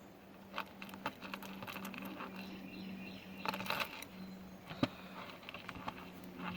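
Small clicks and jingles of a metal statement necklace being handled, with one sharp click about five seconds in, over a steady low hum and faint birdsong.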